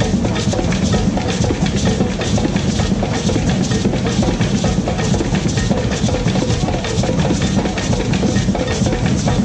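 Loud drum-led music: a drum kit and percussion playing a steady, busy beat with a strong bass drum.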